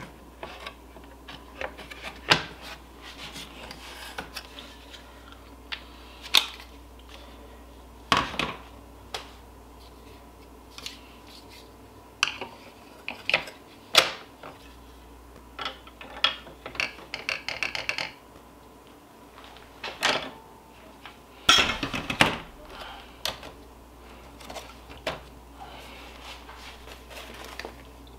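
Hard plastic parts of a Hoop Master hooping station and a Mighty Hoop magnetic embroidery hoop being handled and fitted together: scattered sharp clicks, knocks and taps at irregular intervals. There are a couple of rustling stretches from a sheet of embroidery stabilizer being handled.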